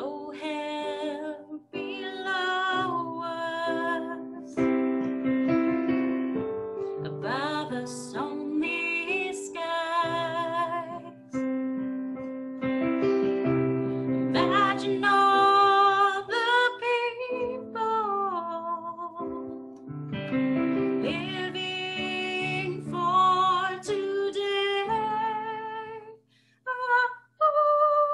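A woman singing a slow song while accompanying herself on an electric keyboard, her voice over sustained chords, with brief pauses between phrases.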